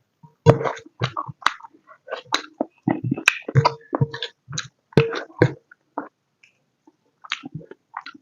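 Close-miked chewing and mouth sounds of someone eating pork curry with rice: irregular wet smacks and sharp clicks, thinning out after about six seconds.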